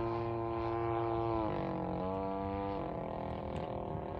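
55cc two-stroke gasoline engine of a large RC warbird in flight, running at a steady pitch. About a second and a half in the pitch drops, rises again briefly at about two seconds, then falls and fades. It is running rich ("fat on the needle"), which shows in the uneven cycling of the note.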